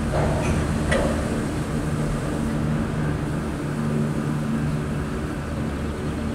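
Gondola lift station machinery running with a steady low hum as a cabin moves slowly through the station. Two short clanks come within the first second.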